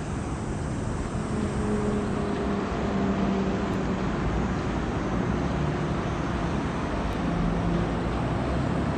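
A low engine drone whose pitch wavers and shifts, over a steady rush of wind and moving water.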